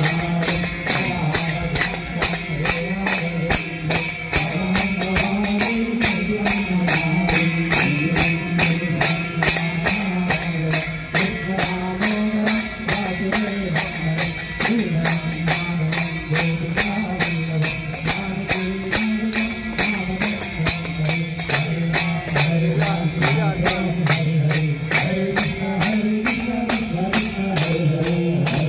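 Hindu devotional aarti to the goddess, a sung melody over a fast, even percussive beat.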